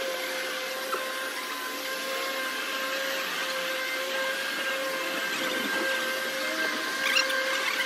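A machine running steadily, a motor hum with a held whine over a hiss, with a few faint taps near the end.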